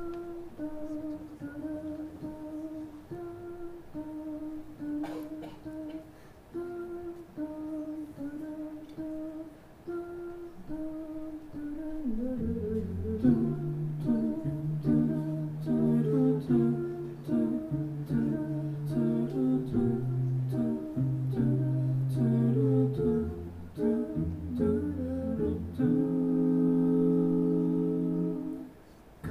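Five-voice a cappella group singing. One voice carries the melody alone for about twelve seconds, then the other voices come in with a bass line and chords. A held chord near the end cuts off abruptly.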